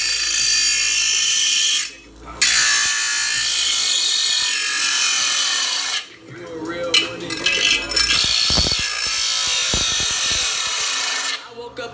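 A power tool running loudly with a whine, stopping briefly about two seconds in and again about six seconds in, then running more roughly with clicks and rattling.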